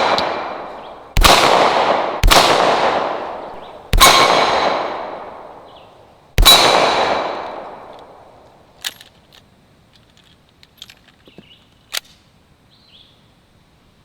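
Four 9mm shots from an AP9 (Tec-9 clone) pistol in slow, uneven fire, each followed by the clang of a steel Texas Star target ringing and fading over a second or two. Then a few faint clicks.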